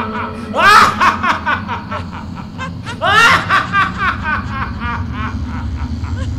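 A woman's cackling laugh, the laugh of a she-demon: two loud bursts about a second and three seconds in, each breaking into a quick run of 'ha-ha' pulses that trail off.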